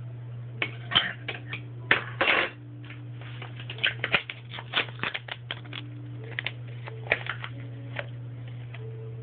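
Small plastic toy pieces being handled, giving an irregular run of light clicks and taps, over a steady low hum.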